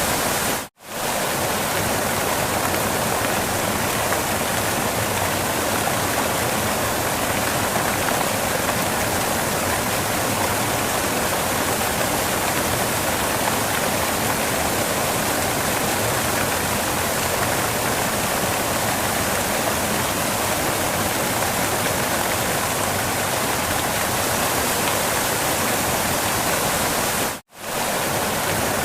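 Steady rushing of a waterfall, an even wash of water noise, cut off by a brief dropout just under a second in and again near the end.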